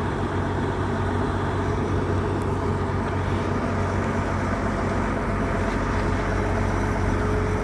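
Heavy diesel engines of cranes rigged for a tandem lift, running steadily with a low, even hum.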